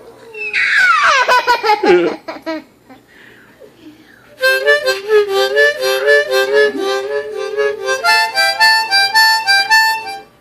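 A child playing a harmonica: a fast slide down the scale about half a second in, then after a short pause, from about four seconds in, rapid alternation between two chords in a quick, even rhythm until just before the end.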